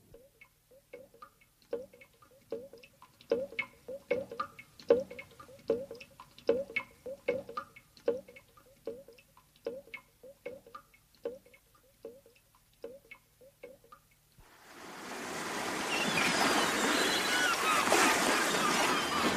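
Radio-drama sound effects: a run of irregular knocks and taps, two or three a second and varying in strength, for about fourteen seconds. They stop, and steady rushing water fades in and holds.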